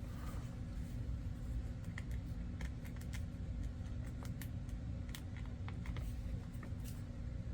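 Small, sharp, irregular clicks and ticks of a metal staple-removal tool working at a comic book's old staple, starting about two seconds in, over a steady low hum.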